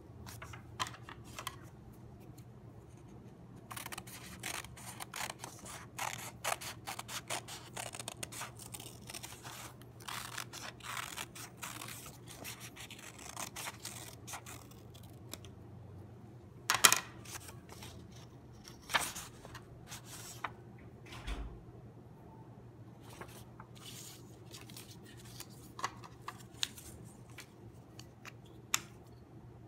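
Scissors cutting through folded construction paper: long runs of quick snips with paper rustling, then a few sharp knocks and scattered handling clicks. A steady low hum runs underneath.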